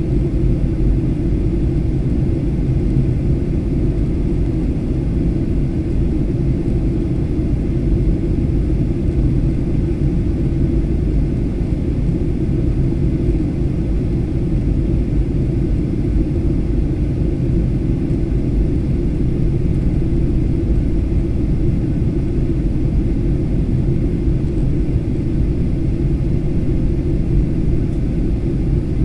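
Steady cabin noise inside a Boeing 737-800 jet airliner on approach: an even, constant low rumble of the engines and rushing air, heard at a window seat over the wing.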